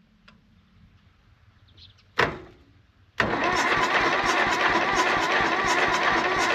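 A sharp clack about two seconds in, then a second later the electric starter begins cranking the Valmet 500 tractor's diesel engine, turning it over in an even beat without it catching, as it struggles to start after long storage.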